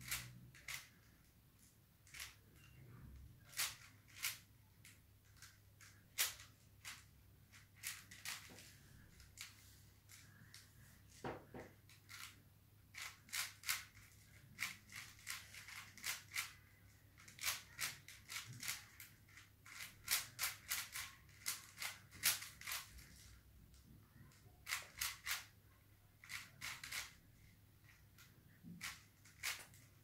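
Layers of a plastic stickerless 5x5 Rubik's cube being turned by hand: sharp plastic clicks and clacks at an uneven pace, now and then in quick runs of several turns.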